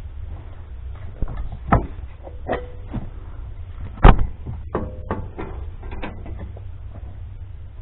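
Steel snowplow-mount frame and brackets being handled and set against the truck's front end: scattered metal knocks and clanks, the loudest about four seconds in, a few with a brief ring, over a steady low hum.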